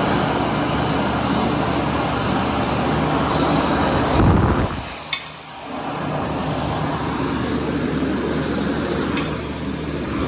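Bobrick Aircraft B-700 electric hand dryer running, a steady rush of blown air over a low motor hum. About four seconds in there is a brief, louder low rumble, then a short dip and a click before the steady running resumes.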